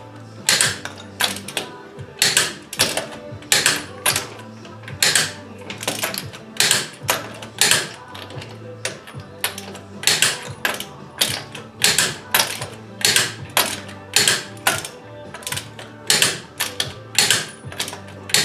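Ratcheting socket wrench being swung back and forth on a car wheel's lug nuts, in short runs of clicking about two a second, as the nuts are tightened down to torque.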